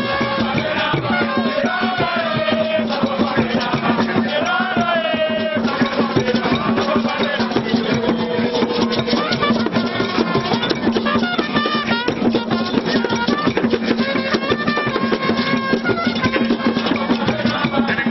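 Traditional Ghanaian music: fast, steady drumming and percussion with voices singing over it.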